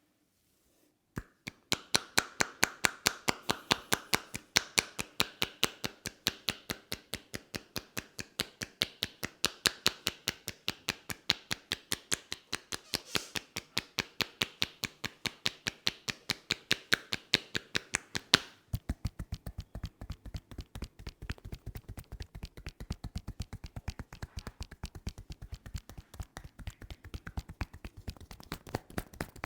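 Rapid, rhythmic hand strikes from a barber's head massage, about four to five crisp slaps or taps a second. About two-thirds of the way through, the strikes turn deeper and duller.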